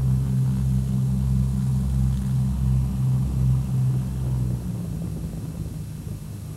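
Twin-engine propeller aircraft's piston engines running with a steady low drone as it taxis away; the drone drops off sharply about two-thirds of the way in as the plane moves off.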